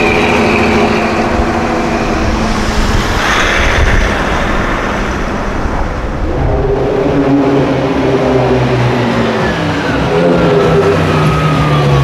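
A 1970s Dodge sedan's engine pulling away and running off down the street, with a surge about three seconds in. From about halfway a second car's engine runs steadily at a low pitch, with a slowly falling whine near the end.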